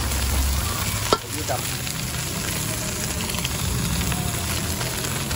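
Food sizzling and frying in a hot wok as it is stir-fried, with the metal spatula scraping and tossing it. About a second in, one sharp knock, likely the spatula striking the wok.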